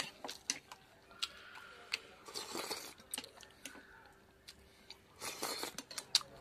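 Close-miked eating sounds: a man chewing a mouthful of rice and pork fat, with sharp mouth clicks and lip smacks and two longer wet, crunchy stretches about two and a half and five seconds in.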